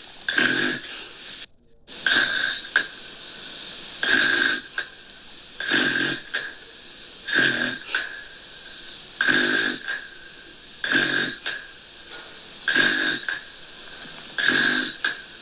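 Gentle snoring: short, regular rasping breaths, about one every two seconds, with a brief cut to near silence about a second and a half in.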